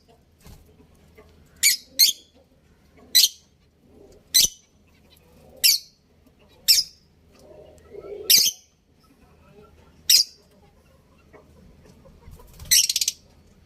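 Budgerigars calling: short, sharp, high-pitched chirps about every second, with one longer, rapidly pulsing chatter near the end.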